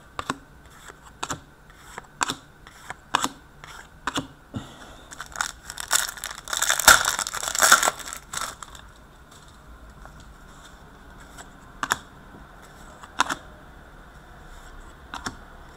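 Upper Deck Portfolio hockey cards being flipped through by hand, one card at a time, each flick a short sharp click, about one a second at first. A longer rustle of card stock and packs being handled about six seconds in, then a few more scattered clicks.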